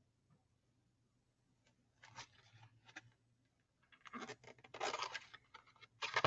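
Faint rustling and scraping of a thick cardboard board book being handled and its page turned, in short irregular bursts starting about two seconds in.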